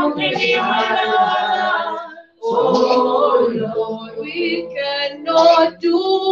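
A small group of women singing a worship chorus together a cappella, with a brief break about two seconds in.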